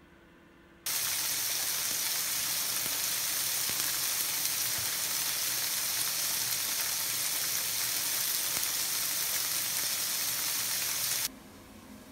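Pot of soy-sauce braising liquid for braised tofu heating on the stove, with a steady sizzling hiss. It starts suddenly about a second in and cuts off abruptly near the end.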